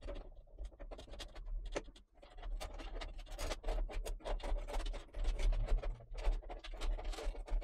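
Power supply cables being pushed by hand into the back of a computer case: irregular scratching, rubbing and small clicks as the cable is worked into place. This is the CPU power cable being tucked away behind the motherboard tray.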